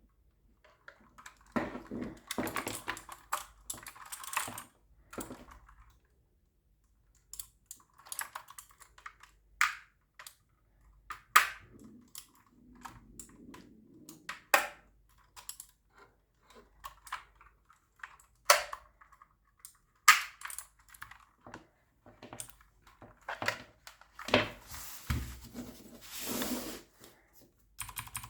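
A mechanical gaming keyboard and its packaging being handled, with scattered sharp clicks and knocks and stretches of rustling in between.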